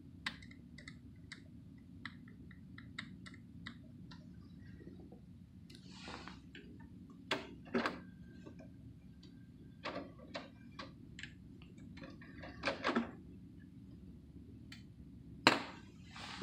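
Compaq Presario SR1913WM desktop PC running with a steady low hum from its fans and drives while it boots Windows XP. Over the hum come a run of small, quick clicks in the first few seconds, then several louder knocks, the loudest near the end.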